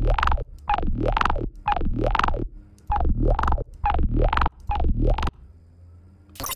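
Electronic bass-music synth loop played through FabFilter Volcano 3's all-pass filter: short, heavy bass notes with rising pitch sweeps, repeating a few times a second, pausing near the end. The filter's frequency is being moved, so the phase shifts colour the tone slightly without cutting any of it.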